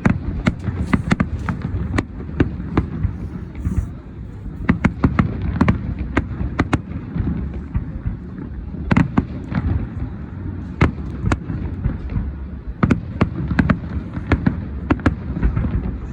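Fireworks going off: a dense, irregular string of sharp bangs over a continuous low rumble.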